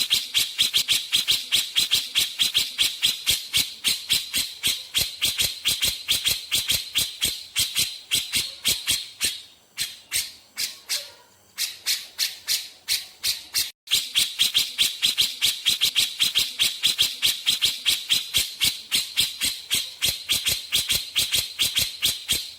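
Grey-cheeked bulbul (cucak jenggot) giving its rapid rattling 'besetan' call: a harsh chatter of about five sharp notes a second. The chatter softens for a couple of seconds about ten seconds in, then breaks off briefly before resuming.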